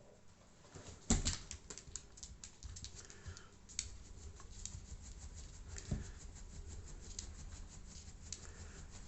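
A cat moving about: rapid, irregular clicking and tapping, with a louder thump about a second in and another about six seconds in.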